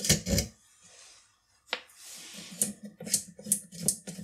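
Small metal nuts, springs and washers clicking and clinking as they are handled and set down. There are a couple of sharp clinks at the start, a pause, a single click, then a run of lighter clicks about two or three a second.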